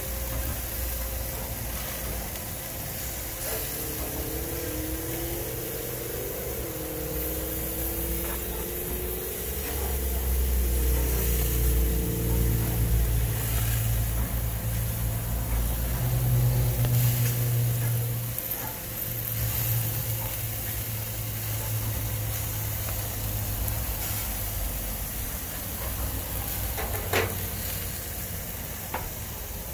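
Pork skewers sizzling steadily on a gas grill. A low rumble swells about a third of the way in and eases off after about eighteen seconds, and there is one sharp click near the end.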